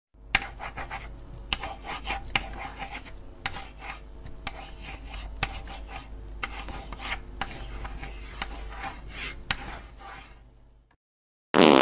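Felt-tip marker scratching across paper in a run of short strokes, over a steady low hum. Near the end it cuts off, followed by a brief, loud burst of noise.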